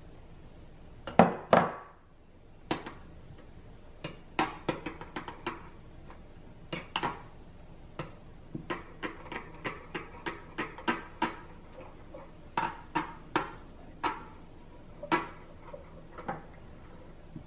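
Metal spoon clinking and tapping against a glass bowl while stirring a melted-butter, garlic and parsley mixture, in irregular single taps, with a couple of louder knocks about a second in.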